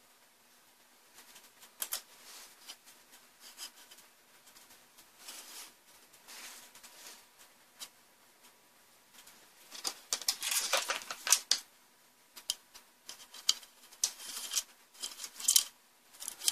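Thin LED light-bar strips and plastic backlight parts handled by hand on an opened LCD monitor frame: irregular light clicks, taps and short scraping rustles. They are sparse at first and become busier and louder from about two-thirds of the way in.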